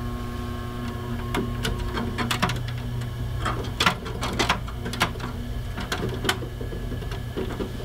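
Synology DS918+ NAS running idle: a steady hum from its fan and hard drives, with its chassis vibration buzz held down by a hand pressed against the drive trays, the way it should sound when not under load. Scattered light clicks come through the hum.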